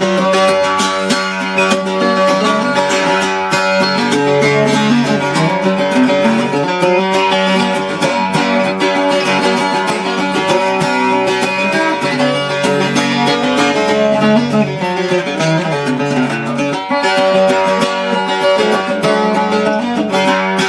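Freshly restrung Arrow octave mandolin built by Paul Lestock, played solo as an instrumental break: a steady stream of picked notes and strums over ringing low strings.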